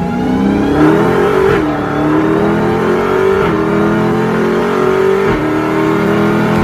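Dodge Challenger accelerating hard, its engine note climbing through the gears and dropping back at three upshifts, about a second and a half, three and a half and five seconds in.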